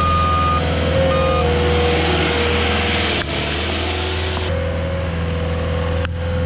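A heavy construction machine's diesel engine running steadily, with its backup alarm beeping twice in the first second or so.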